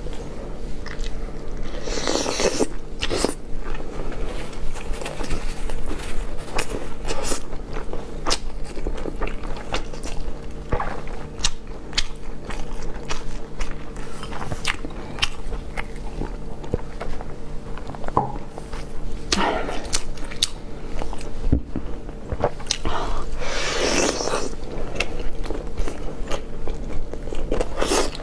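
A person chewing and biting food close to the microphone, with many short wet clicks and smacks and a few louder crunching bursts, over a steady low hum.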